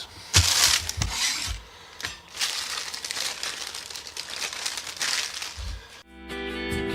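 Packaging being handled and crinkled, with irregular crackling and rustling, much like plastic wrap or a box being opened. Music comes in near the end.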